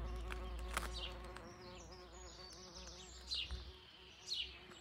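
A bee buzzing close by, a steady hum that fades after the first second or so, with a few short high bird chirps.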